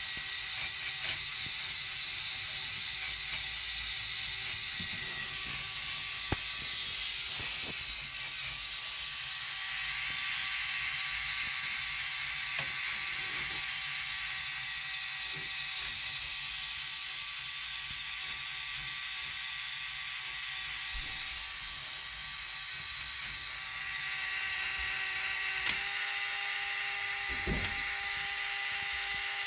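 Lego Technic Power Functions electric motors whirring as they drive the plastic gears and mechanisms of a Lego bucket wheel excavator model, with a steady clicking gear clatter. The whine changes in pitch and strength a few times as motors are switched, with a few sharp clicks.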